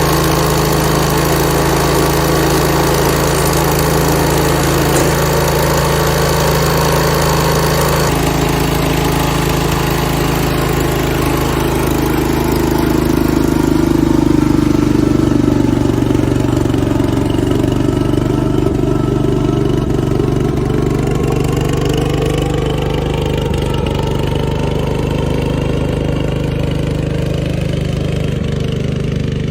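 1970 Cub Cadet 127 garden tractor's single-cylinder Kohler engine running steadily with its fresh head gasket. The note changes about eight seconds in and then drifts slowly up and down in pitch.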